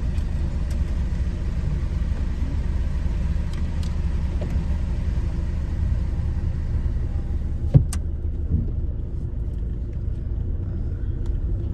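Car engine running steadily, heard from inside the cabin, as the car idles at a toll barrier and then moves off slowly once it lifts. A single sharp click about three-quarters of the way through.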